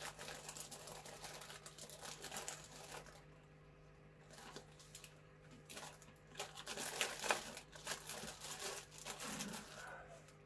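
Crinkling and rustling of a plastic bag, with green onion stalks being pulled out and peeled by hand. It comes in two spells of crackling, with a quieter pause in between.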